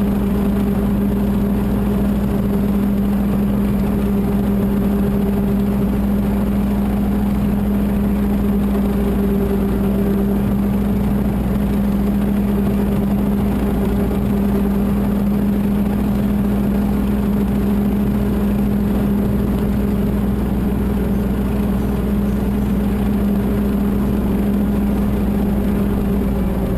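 Mahindra 1526 tractor's diesel engine running at a steady speed, with a constant low hum.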